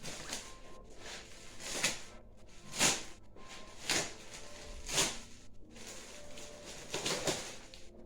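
Parcel packaging being opened by hand: rustling and scraping, with several louder swishes about a second apart.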